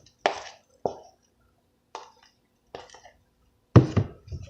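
Fluffy slime being mixed in a container: a series of short, wet squishes, about six in all, the loudest near the end.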